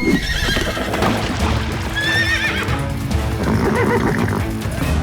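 A cartoon horse whinnying, with a wavering call about two seconds in, over background music.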